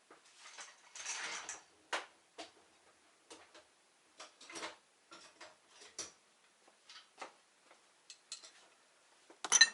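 Irregular light metal clicks and taps from a tool and the viscous fan clutch's housing being handled, with a brief scrape about a second in and a quick cluster of sharper clicks near the end.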